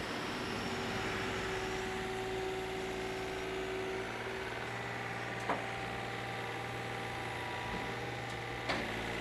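Takeuchi mini-excavator's diesel engine running steadily as it digs, with a sharp knock about halfway through and another near the end.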